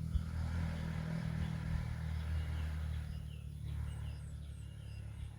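A steady, low engine hum, with short, high bird chirps repeating from about three seconds in.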